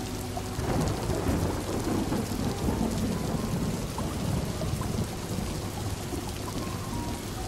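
Distant thunder rumbling over steady rain. The rumble builds about half a second in, peaks over the next couple of seconds and dies away, while the rain hiss goes on unchanged.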